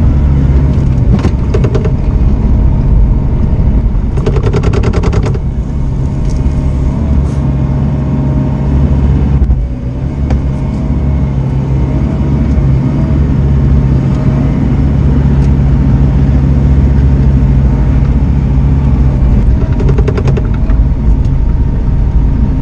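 Bobcat compact excavator's diesel engine running steadily, heard from inside the cab, with a higher whine that wavers in pitch as the boom and bucket dig. Three short bursts of rapid clicking: about a second in, around four seconds in, and near the end.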